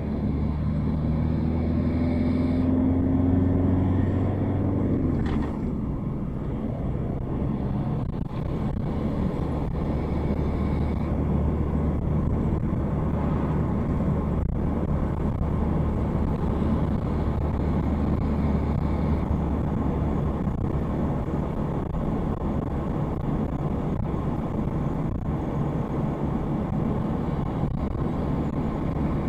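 A car heard from inside its cabin while driving, engine and tyre noise together. The engine note rises for the first four seconds or so, drops away about five seconds in, then settles into a steady low drone with road rumble.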